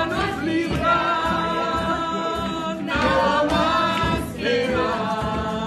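A man and a woman singing a song together in long held notes, with an acoustic guitar strummed under the voices.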